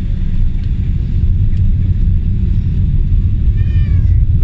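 Jet airliner's engines and its rolling on the runway, heard from inside the cabin over the wing: a steady low rumble.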